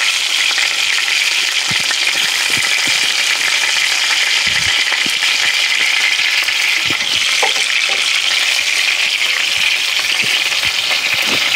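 Large beef top round roast searing in hot lard, a steady sizzle with a few faint pops.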